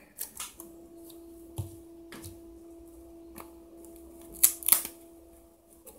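Small plastic clicks, scrapes and taps as the separated touchscreen and plastic front frame of an Alcatel One Touch Pixi 3 phone are handled, with the loudest clatter about four and a half seconds in.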